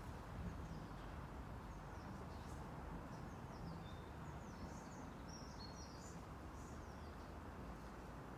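Several short, high bird chirps over a steady low background noise.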